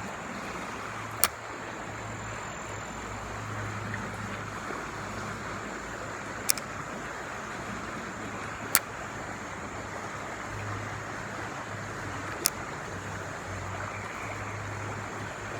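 Steady rush of fast-flowing river water, with four sharp clicks spread through it.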